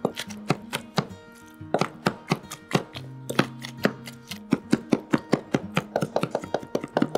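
Chef's knife chopping soft cooked food on a cutting board: a run of sharp knocks, about three a second at first, speeding up to rapid mincing in the second half. Background music with a plucked guitar plays underneath.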